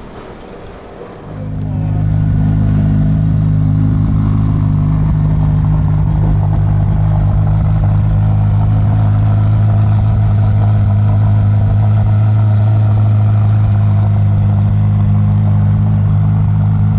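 A car engine running steadily close by, coming in loud about a second in and then holding one even pitch.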